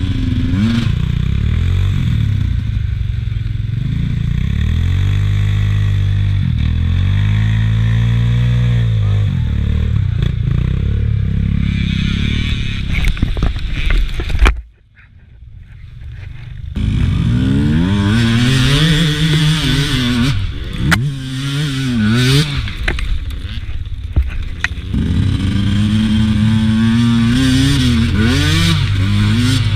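Beta RR 200 two-stroke enduro motorcycle engine revving up and down as it is ridden over rough, rutted ground. Halfway through it cuts out after a sharp burst and stays quiet for about two seconds, then runs and revs again.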